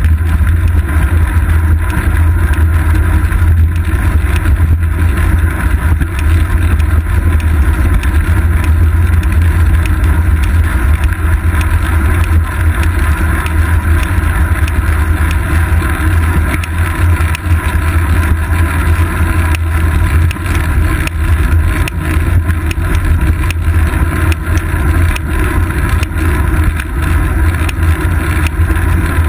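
Loud, steady, deep rumble of wind buffeting the microphone of a seat-post-mounted action camera, mixed with bicycle tyre and road noise as the bike rolls along asphalt.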